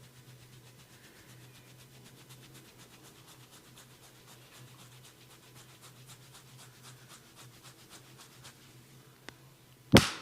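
Hands working a person's head during a massage: faint, rapid, light tapping or rubbing strokes, about six a second, then one loud sharp crack near the end.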